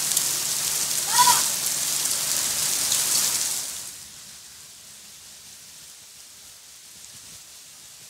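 Rain falling steadily on a street and rooftops, loud for the first few seconds, then suddenly much quieter about halfway through. A short call sounds about a second in.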